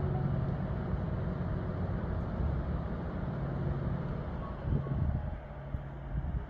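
Air conditioner running with a steady low hum.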